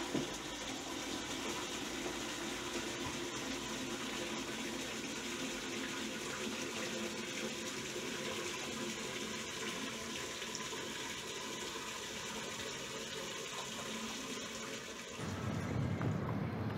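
Tap water running into a plastic bucket in a sink, a steady rush. About 15 seconds in it gives way to a distant engine rumble.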